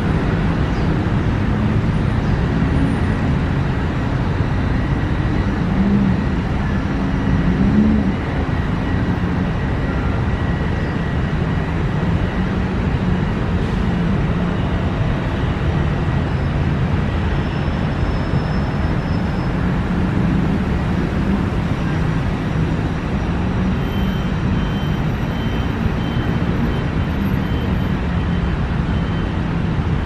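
Steady rumble of city road traffic with no single event standing out.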